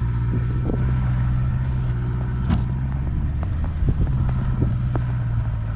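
Vehicle engine running steadily, a low even hum, with scattered light clicks over it.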